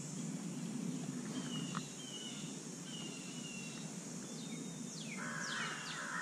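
Birds chirping and whistling outdoors over a steady high hiss, with a harsh cawing call starting about five seconds in.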